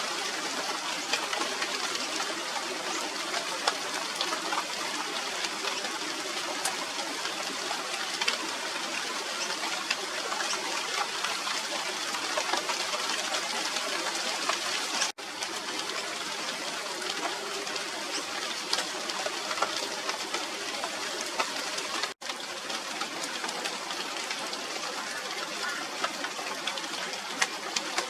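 Steady rain falling on a tree's leaves, a dense hiss full of fine drop ticks. The sound cuts out for an instant twice, about halfway through and again near the three-quarter mark.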